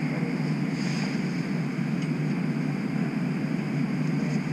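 Steady low hum and hiss inside a streetcar standing still.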